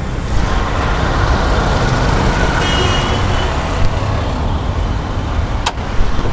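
Steady road-traffic rumble, with a brief high-pitched tone about three seconds in and a single sharp click near the end.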